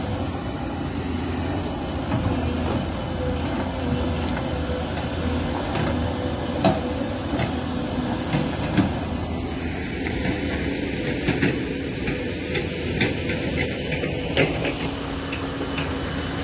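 Heavy diesel machinery running steadily, most likely the excavator working as it loads mud into dump trucks, with a few sharp knocks scattered through.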